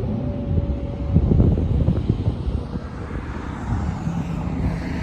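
Steady low rumble of an Airbus A350-900's Rolls-Royce Trent XWB jet engines as the airliner lands, with a higher hiss building over the last couple of seconds.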